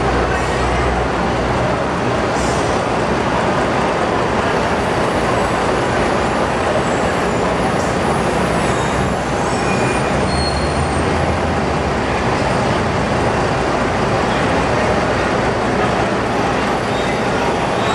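Bus engines running at the berths of a covered bus interchange: a loud, steady din with a low engine hum that swells briefly about ten seconds in.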